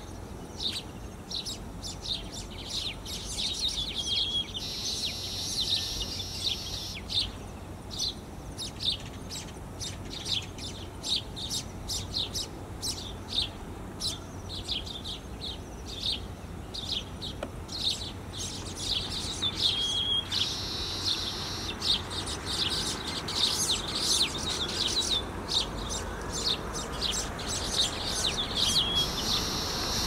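Male baya weaver singing: runs of quick, dry chattering notes mixed with wheezy, hissing passages. Three times, a run ends in a short clear whistled note.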